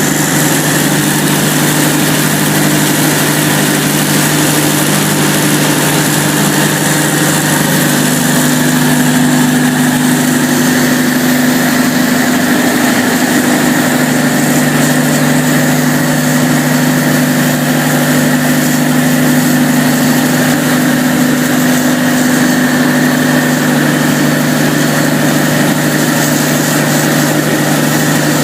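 Cummins KTA38-G4 V12 diesel generator set running steadily, a loud, even drone with several held hum tones; about eight seconds in, one of the higher hum tones grows stronger.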